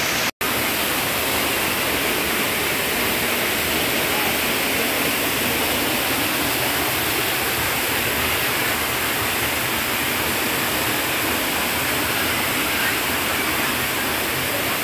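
Waterfall and fast stream rushing over rocks, a steady, even roar of water. It cuts out for an instant just under half a second in.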